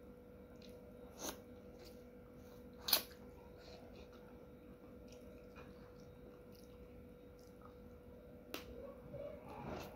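Close-up eating sounds: quiet chewing and mouth sounds, broken by three sharp clicks, the loudest about three seconds in, and others just over a second in and near the end.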